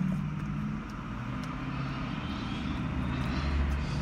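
Low, steady vehicle engine hum heard from inside a car, swelling a little about three and a half seconds in.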